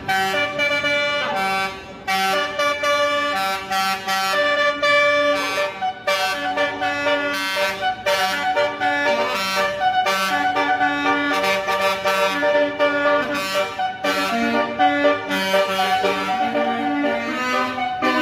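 Basuri telolet musical air horn playing a melody: a run of loud, sustained horn notes that change pitch one after another with brief breaks between them.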